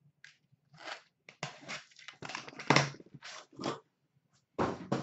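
Cardboard shipping case scraping and rustling as it is worked off a stack of boxed hockey card products, in a run of short bursts with a louder bump about three seconds in and another near the end.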